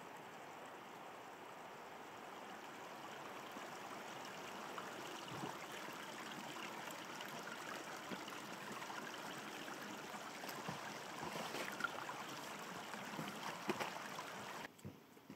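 Water running over rock in a mountain stream: a steady rushing that grows slightly louder, with a few sharp knocks near the end, then cuts off abruptly shortly before the end.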